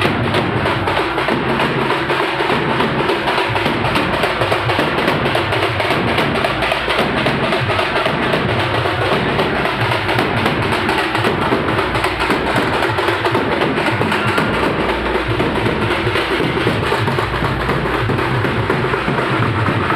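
Loud drum-heavy music with a pounding bass drum and busy percussion, kept up without a break.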